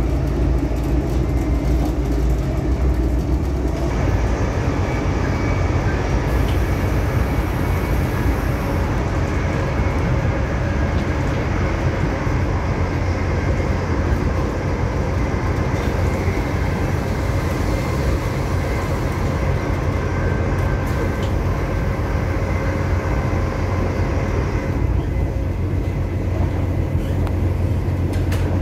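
Class 180 Adelante diesel-hydraulic multiple unit running, its underfloor Cummins diesel engines giving a steady, loud hum with steady tones over it. The sound grows fuller about four seconds in and eases back near the end.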